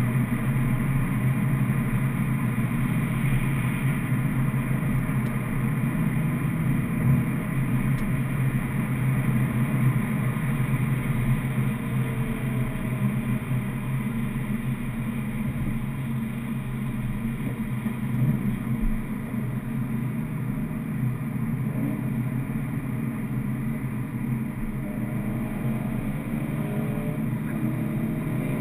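Car engine and road noise inside the cabin at highway speed, a steady low drone. In the last few seconds a rising engine note joins it as the car speeds up.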